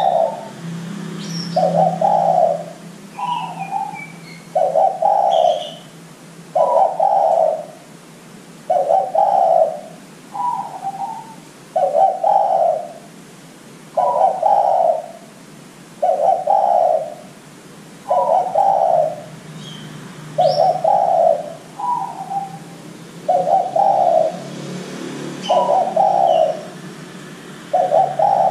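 Spotted dove (derkuku) cooing: a low coo repeated about every two seconds, some coos followed by a shorter, higher note. Faint chirps of small birds sound in the background.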